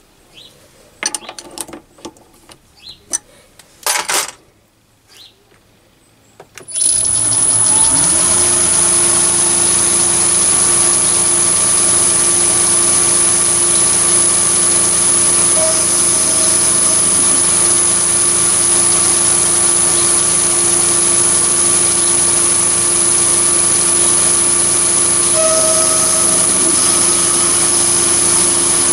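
Several metallic clicks and knocks as a tool holder is handled and fitted on a Chinese mini lathe. About seven seconds in, the lathe's motor switches on and runs steadily, turning the spindle at about 470 rpm, with a constant high-pitched whine over a low hum.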